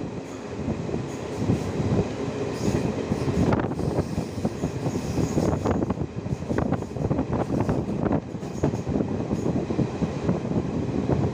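Passenger train running at speed, heard from inside the carriage: a steady rumble of wheels on the track, full of irregular rattles and knocks, with faint high squeals from the wheels now and then.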